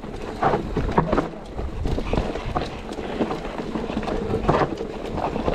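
Mountain bike riding over a rough dirt trail: an uneven clatter of knocks and rattles from the bike over rocks and roots, over the rumble of the tyres.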